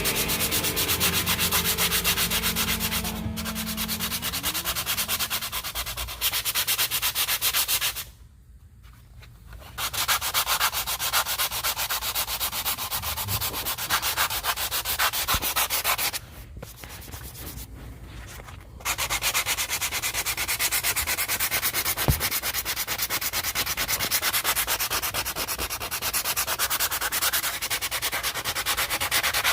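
Power sander with 80-grit sandpaper running against a boat's nonskid deck, with a dense, fast, rasping noise. It stops twice for a couple of seconds, about 8 and 16 seconds in, and starts again each time.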